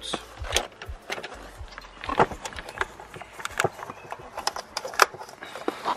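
Irregular sharp clicks and knocks of plastic seat trim covers and hand tools being handled, about a dozen in all, the loudest about two and five seconds in.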